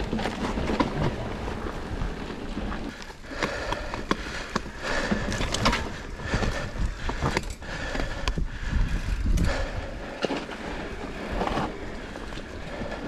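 Mountain bike ridden over a dirt and leaf-covered trail: a continuous rumble of tyres on rough ground, with irregular rattles and knocks from the bike over bumps and roots.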